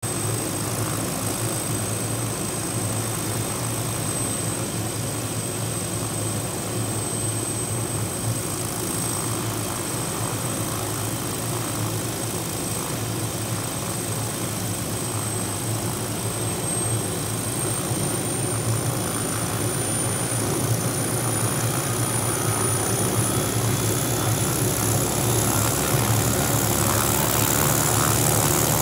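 MD 500 helicopter's turbine engine and main rotor running up on the pad: a thin high turbine whine holds steady, then climbs in pitch about two-thirds of the way through, over a steady low rotor and engine drone that grows gradually louder as the engine spools up.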